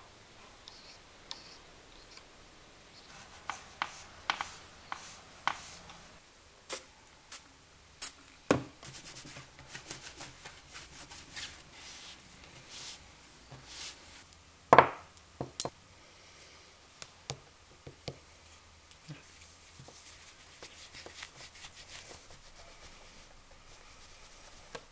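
Cloth rubbing and wiping over small metal clock parts, with scattered light clicks and knocks as the parts are handled on a workbench. A sharper knock comes about fifteen seconds in.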